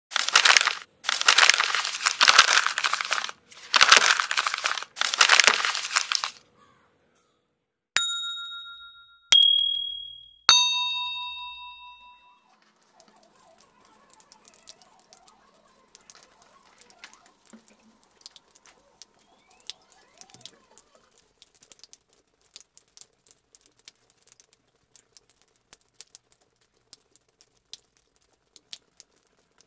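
Four bursts of harsh crackling noise over the first six seconds. Then come three separate chime-like dings a little over a second apart, each ringing out and fading. Faint scattered crackles and clicks follow.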